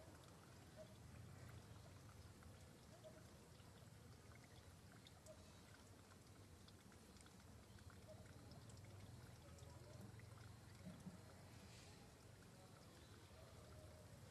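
Near silence: a faint low background hum with scattered faint ticks and a few short, faint mid-pitched tones.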